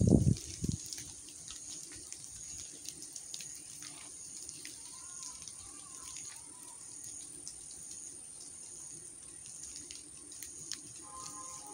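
Outdoor ambience after rain: scattered drips of water falling through wet tree foliage over a steady high hiss. A brief low rumble in the first second, and a faint wavering call about five seconds in.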